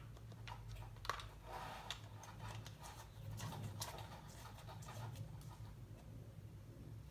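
Faint scattered clicks and light knocks of a string trimmer's plastic housing being handled, over a low steady hum.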